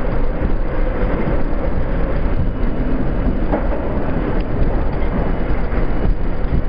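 R32 subway car running through an underground station, heard from inside the front car: a steady, loud rumble of wheels and running gear on the rails with a steady hum.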